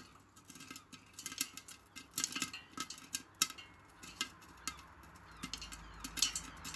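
Popcorn kernels popping in a pot under a glass lid: scattered sharp pops at an irregular pace.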